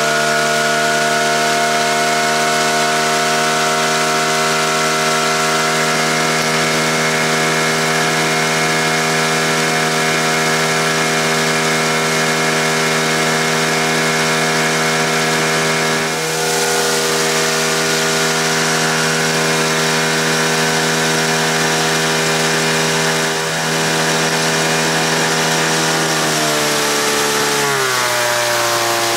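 Suzuki DT9.9 twin-cylinder two-stroke outboard running at a steady high speed under load, pushing an aluminium boat. Near the end the engine note falls in pitch as it slows.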